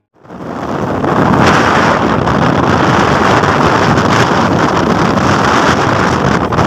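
Wind buffeting the microphone of a moving camera, a steady loud rush that fades in over the first second.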